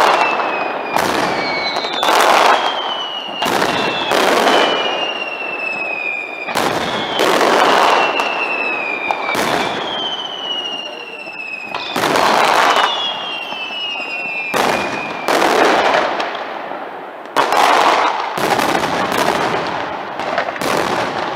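Aerial fireworks display: shells bursting one after another, about one loud bang every second or two, with whistles gliding slowly down in pitch between the bursts.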